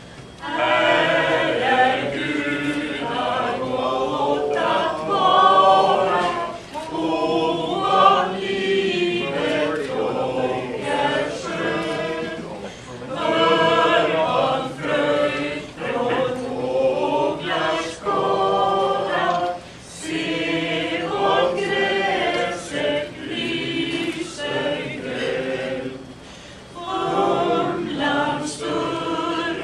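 A small mixed group of men and women singing together unaccompanied, in phrases separated by short pauses.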